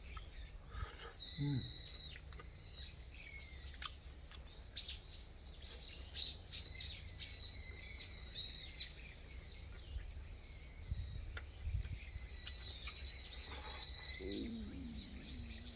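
Small birds chirping and twittering in many short, high, repeated calls throughout, over a steady low rumble.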